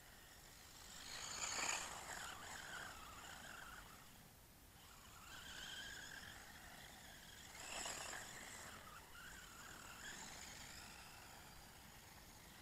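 Remo 1651 RC buggy's 390 brushed electric motor and drivetrain whining, faint, rising and falling in pitch with the throttle, swelling louder twice, about a second and a half in and again about eight seconds in.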